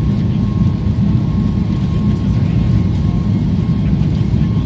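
Boeing 737 MAX 8 with CFM LEAP-1B engines: a loud, steady low rumble with a thin steady whine running through it.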